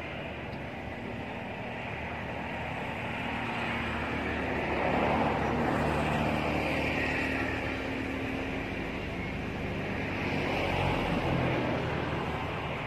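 Steady engine drone of a motor vehicle, swelling louder about five seconds in and again around ten seconds in.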